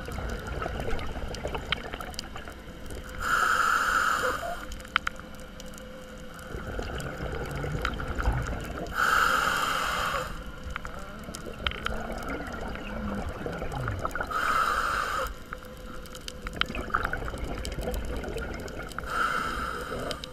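Scuba diver breathing through a regulator underwater: four hissing inhalations about five to six seconds apart, with bubbling and crackling of exhaled air between breaths.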